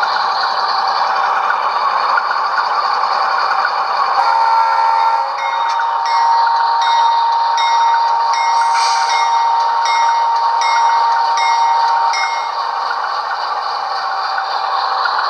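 LokSound DCC sound decoder in a model VIA Rail P42 diesel, playing a steady diesel engine drone through the locomotive's small onboard speaker. About four seconds in there is a short pitched blast. From about five to twelve seconds the locomotive bell rings, roughly two strikes a second.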